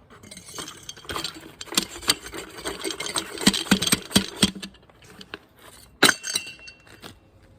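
Metal parts of a failed shock absorber clinking and rattling as they are handled, a quick run of knocks and clinks, then quieter with one sharp metallic knock and a brief ring about six seconds in.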